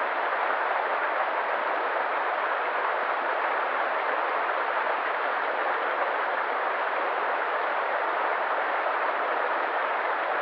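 River water flowing, an even, unbroken rush.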